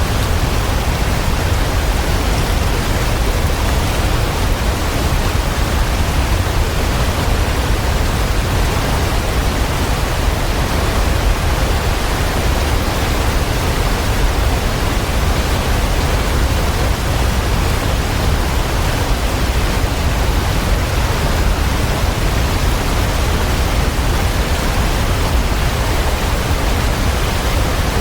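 Waterfall: water falling in a steady, unbroken rush, even throughout and heaviest in the low end.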